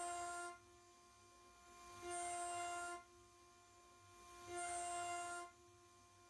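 6040 CNC router spindle milling 6082 aluminium with a 6 mm two-flute end mill on an adaptive toolpath. The spindle's whine is steady, and a louder, higher cutting sound comes about every two and a half seconds, lasting about a second each time, as the cutter sweeps into the material on each pass.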